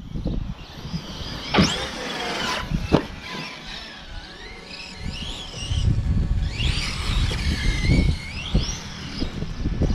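Electric RC monster truck's brushless motor whining, its pitch rising and falling with the throttle, over a low rumble of tyres on grass. A sharp knock comes about a second and a half in and another about three seconds in.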